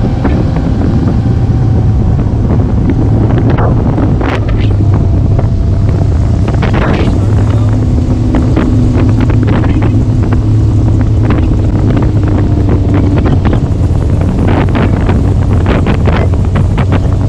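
Bass boat running at speed: steady outboard engine hum under heavy wind buffeting on the microphone, with water gushing into an open live well from the hull's pickup scoop.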